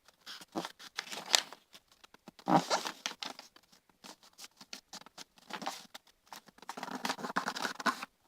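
A sheet of A4 paper being handled and folded: irregular rustling and crisp crackles, with a louder cluster about two and a half seconds in and a longer sliding rub near the end as a crease is pressed down.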